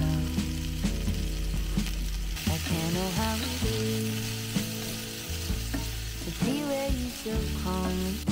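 Diced aubergine and courgette sizzling in a cast-iron skillet as they are stirred with a wooden spoon. The sizzle grows louder about two seconds in.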